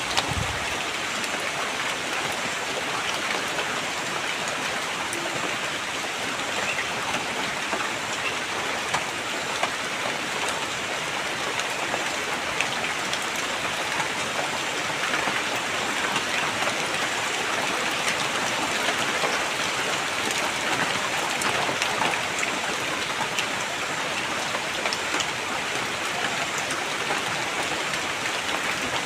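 Steady rain falling, with scattered individual drops tapping through the hiss.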